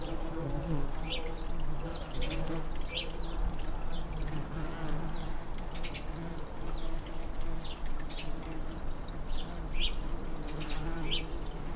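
Tree bumblebees (Bombus hypnorum) buzzing around their nest, a hum that wavers in pitch and swells and fades. A small bird's short chirps recur every second or two behind it.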